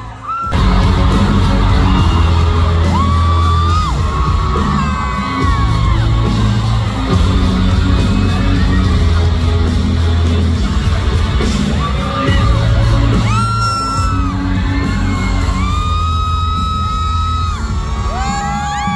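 Loud amplified live pop concert heard from the audience: a band with heavy bass and a lead singer, with fans yelling, whooping and singing along. The music comes in about half a second in after a brief drop.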